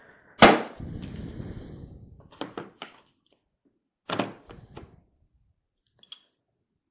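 Tools being handled in a plastic mechanics tool set case: a sharp knock, then about a second and a half of fast fine clicking, a few more clicks, and a second knock about four seconds in.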